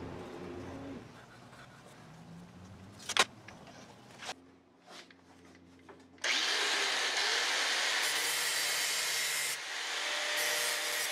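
An angle grinder with a thin cutoff wheel starts abruptly about six seconds in and runs loudly and steadily, to cut sheet brass. Before it there is a single sharp click and a few soft knocks.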